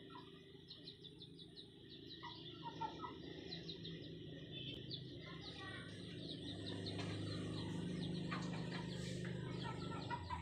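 Small birds chirping in quick, repeated notes, with a few chicken clucks about two to three seconds in, over a low hum that grows louder through the second half.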